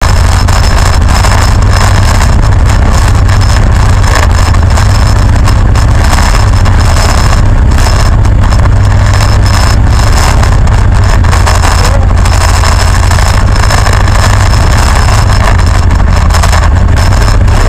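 1975 Chrysler Newport's V8 engine idling loud and steady, heard from a camera mounted on its roof, a constant low rumble.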